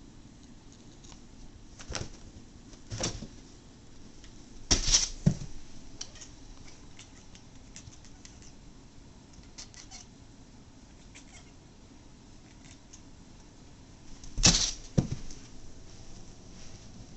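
Domestic cat making short, weird, almost chirping noises at a laser pointer dot held out of its reach, the frustrated chirping a cat gives at prey it cannot get. A few louder sharp bursts stand out, about two, three and five seconds in and again near the end, with fainter ones between.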